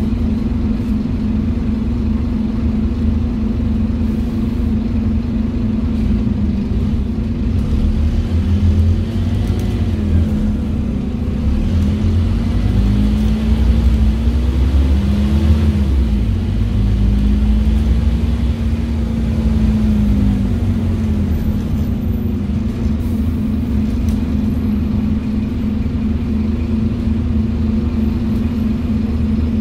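Scania DC9 diesel engine and ZF Ecomat 5HP500 automatic gearbox of a Scania N230UD OmniCity bus, heard from inside the passenger saloon. It runs steadily, and from about eight seconds in it grows louder, its note rising and falling several times as the bus accelerates through the gears. It settles back to a steady run for the last third.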